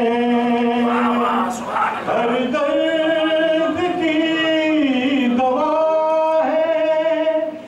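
A man singing a naat unaccompanied, in long held notes that bend and waver in pitch. The voice breaks off briefly near the end.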